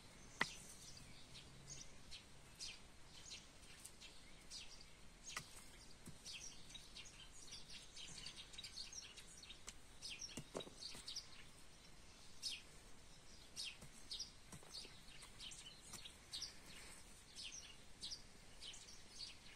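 Small birds chirping and twittering in quick short high notes throughout. A few separate knocks of a hand hoe striking the soil come through, the loudest about half a second in.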